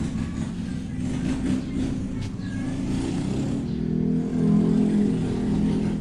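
Steady low rumble of stroller wheels rolling over rough, cracked concrete, getting louder a little past the middle.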